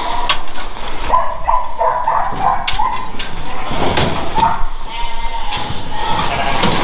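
Scottish Blackface sheep bleating in short calls, mostly in the first few seconds, as they crowd and jostle in a pen, with scattered sharp knocks against the pen.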